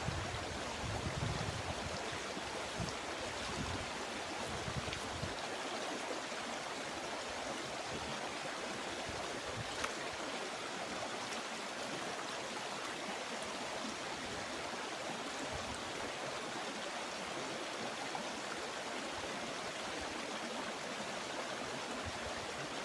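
Rushing water of a river current flowing steadily, with a few soft low thumps in the first five seconds.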